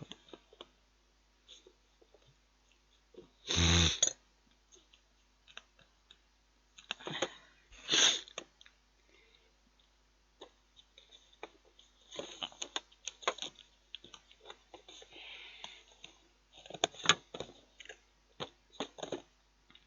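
Knife spreading margarine on a soft bread roll: scattered scrapes and clicks. There is a short, loud voiced sound from the man about four seconds in, and a sharp noisy burst just before eight seconds.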